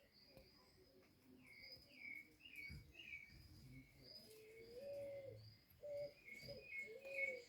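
Faint birdsong from several birds: short, repeated high falling notes throughout, joined about halfway through by a lower call repeated several times.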